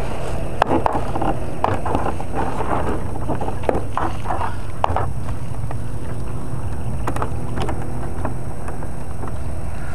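Model Macchi M.33 flying boat's motor droning steadily as it taxis on the water, heard from on board. Sharp knocks and splashes of water against the hull come in the first half, as it moves off the shallows.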